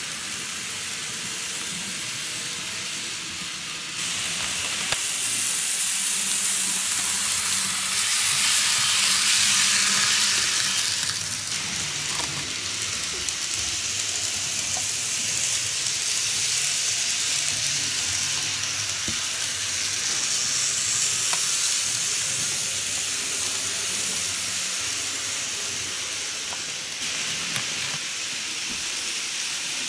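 N-gauge model trains running on sectional track: a steady high-pitched rushing hiss of small wheels on the rails and the running motors, swelling and fading as trains pass close and move away, with a few faint clicks.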